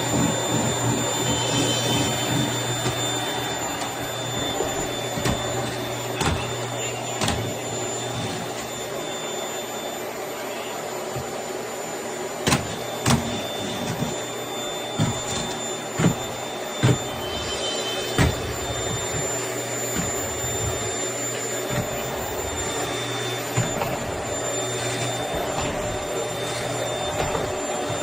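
Household vacuum cleaner running steadily with a thin high whine. Around the middle come half a dozen sharp knocks.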